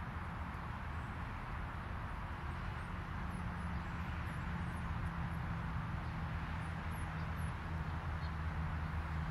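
Distant road traffic, a steady wash of combustion-engine and tyre noise heard through the trees, with a low engine hum coming up about two and a half seconds in and slowly swelling. A few faint, high bird chirps sit on top.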